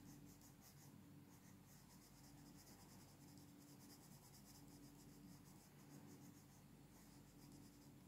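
Faint, rapid scratching of a coloured pencil shading on paper in quick short strokes, with a brief pause near the end.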